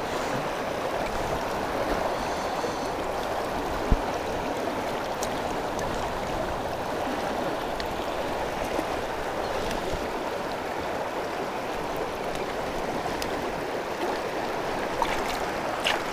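River current rushing and gurgling steadily around the wading angler, with a sharp click about four seconds in. Near the end come a few short splashes as the fish is let go into the water.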